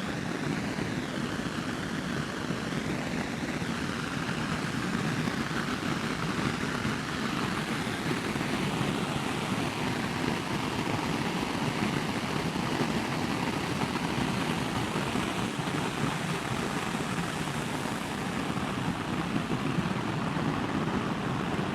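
Royal Enfield Meteor 350's single-cylinder engine running steadily, its low exhaust pulses under an even rush of wind and road noise.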